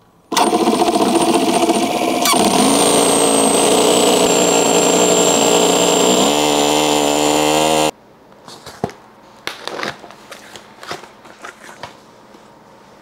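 Small two-cylinder four-stroke nitro glow model engine running loudly, its note stepping down twice, then stopping suddenly about eight seconds in. After that, quieter crinkling and clicking as a cardboard box and bubble-wrapped package are handled.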